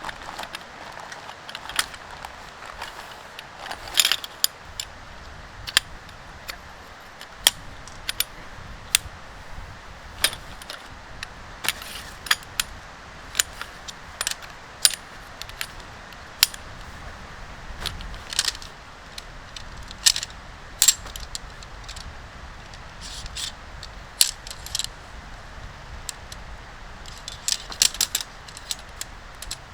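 Tent gear being handled during pitching: irregular sharp clicks and metallic clinks of poles and fittings, one or two a second, over a steady low hiss.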